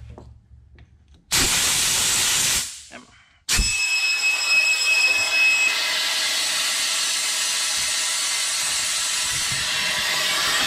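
Compressed shop air hissing through a venturi vacuum coolant-fill tool on a truck's coolant reservoir, drawing a vacuum on the cooling system. A short burst of air hiss comes about a second in. At about three and a half seconds the air comes on for good with a sharp start, then a steady loud hiss with a high whistle over it for the first two seconds.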